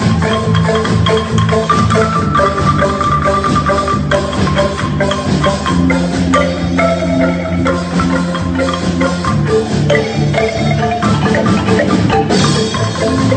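A marimba ensemble playing together: many wooden-keyed marimbas struck with mallets, with bass marimbas keeping a repeating low line under busy higher parts.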